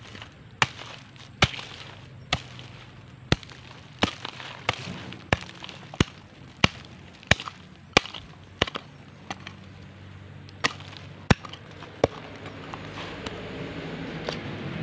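Small metal hand hoe chopping into loose soil, about one and a half sharp strikes a second, digging out a metal-detector target. The strikes stop about 12 s in, and a low hum grows louder near the end.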